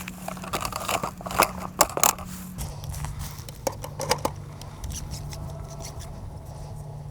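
Irregular clicks, scrapes and rustles of something being handled, over a steady low hum that drops in pitch about two and a half seconds in.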